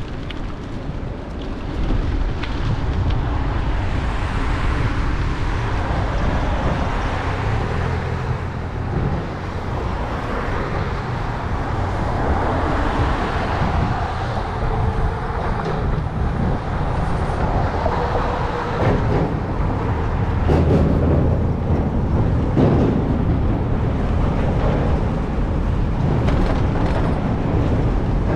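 Road traffic noise heard from a bicycle: a steady low rumble, with passing vehicles swelling and fading a few times.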